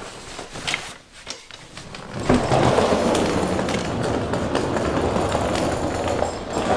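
Handling and movement noise as a person carries things up a wooden staircase: a few clicks and knocks, then from about two seconds in a steady, dense rumbling rustle.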